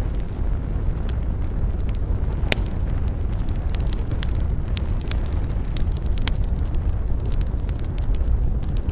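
Campfire burning with a steady low rumble of flames and frequent sharp crackles and pops of burning wood, one louder pop about two and a half seconds in.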